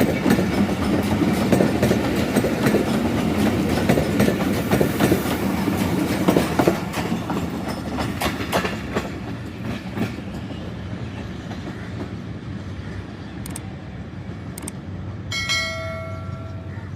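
Pakistan Railways passenger train passing, its wheels clattering over the rail joints with a rumble that fades away over the first ten seconds or so. A short horn sounds once near the end.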